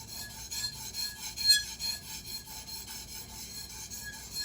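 Steel knife blade being stroked back and forth across a 400-grit Japanese water stone: a repeated scraping rasp, with one stroke about one and a half seconds in louder than the rest.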